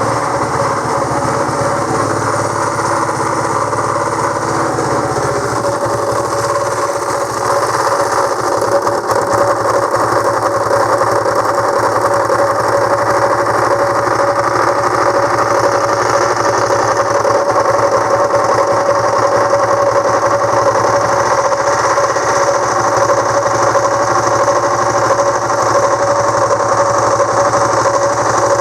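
Honda CB125JX single-cylinder four-stroke engine running steadily with an abnormal mechanical noise, which the owner suspects comes from the crankshaft bearings after ruling out the top end.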